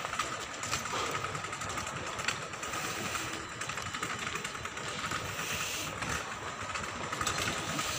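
Shopping-mall ambience: a steady hum and hiss with a faint, steady high tone running through it and a few soft clicks.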